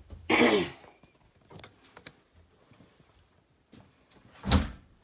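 A brief scraping sound about half a second in, then a single dull thump near the end, heard in a small room.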